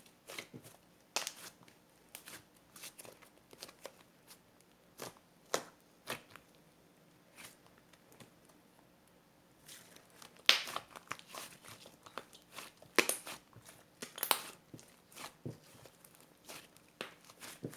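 Irregular crinkling, crackling and clicking of small objects being handled, with a few louder snaps between about ten and fifteen seconds in.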